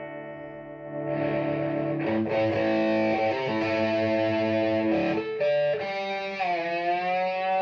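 EVH Wolfgang electric guitar played through the Boulevard Effects 3-in-1 pedal's preamp set for a light crunch, into a Roland Cube 60 amp: ringing chords struck several times, with the pitch dipping and swinging back up near the end.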